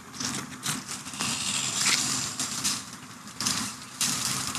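Irregular rustling and crunching, with several short louder crackles through it.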